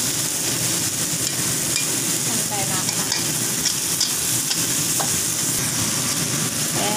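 Sliced taro stems and meat stir-frying in a wok before any water is added: a steady sizzle, with the metal spatula clicking and scraping against the pan a few times.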